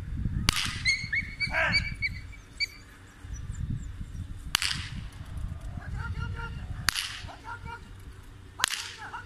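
Four sharp gunshots, one about half a second in and the rest a few seconds apart, fired to test how the puppies react to gunfire.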